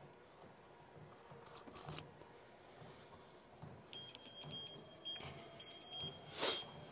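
Cybex treadmill console beeping repeatedly from about four seconds in as its buttons are pressed to turn the machine up, with a faint motor whir rising as it adjusts. A loud nasal breath comes near the end.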